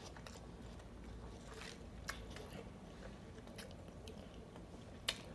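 Faint close-up chewing of food, with a few short, sharp crunchy clicks scattered through it.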